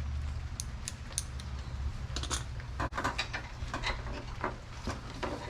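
Light clicks and small knocks of hand tools and small wiring parts being handled, scattered and irregular, starting about half a second in and thickest around the middle and near the end.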